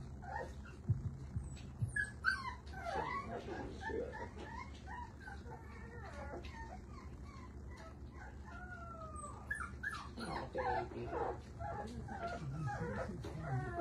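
Micro exotic bully puppies whimpering and yipping: short, high, rising and falling cries in a cluster a couple of seconds in and a longer run in the second half.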